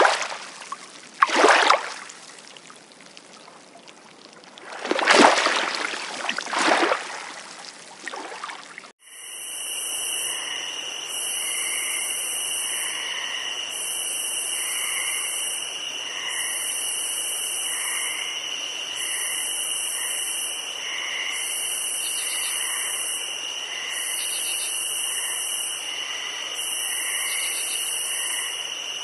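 Small waves washing on a pebble lakeshore in several swells. About nine seconds in this cuts to a steady, high-pitched chirring chorus of marsh wildlife, with a very high buzz that switches on and off about every two seconds over short, softer repeated calls.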